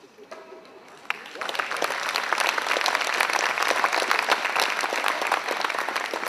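Crowd applauding. It starts about a second in and quickly builds to steady, dense clapping, greeting a clear show-jumping round.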